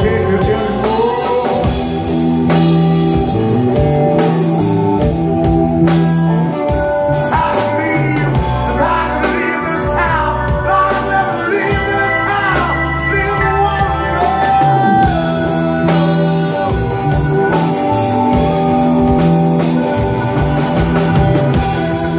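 Live blues-rock band playing: a singer over electric guitar, bass guitar, drum kit and keyboard.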